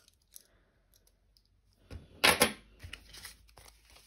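Cash being handled on a tabletop: a few faint clicks, then a short loud burst of handling noise a little over two seconds in, followed by quiet rustling as a stack of plastic £5 banknotes is picked up.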